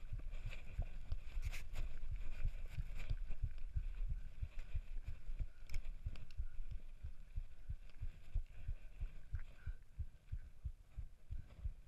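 Mountain bike rolling over a gravel forest road, heard as rapid low thumping through a chest-mounted GoPro's waterproof housing, with a few sharp clicks.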